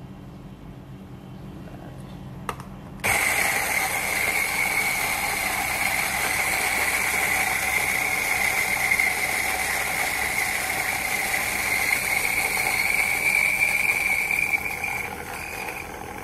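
Feima 600N electric flat-burr coffee grinder switched on about three seconds in, its motor whining steadily as it grinds coffee beans on a coarse setting. The sound eases off near the end.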